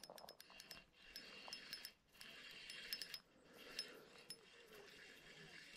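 Faint, light ticking of a spinning reel as its handle is cranked to reel in a hooked fish, several small ticks a second.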